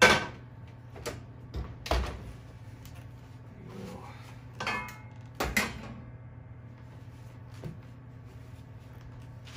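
Stainless steel pot and lid knocked and clanked while being handled with oven mitts on a stovetop: a loud clank at the start, then several more knocks, one with a brief metallic ring.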